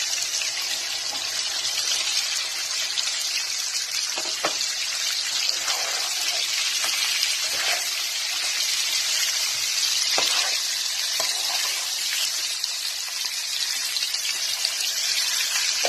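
Smoked sausage and onions sizzling in hot olive oil in a frying pan, a steady hiss with a few light clicks.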